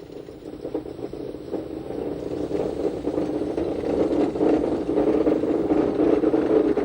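Electric rack-railway train of the Schynige Platte line running, a steady mid-pitched drone with rattles and clatter that grows louder over the first few seconds and then holds.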